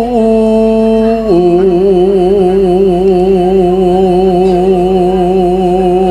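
Javanese bawa: a male singer singing solo and unaccompanied in pelog barang, holding a long note with wide vibrato that steps down to a lower held note about a second in.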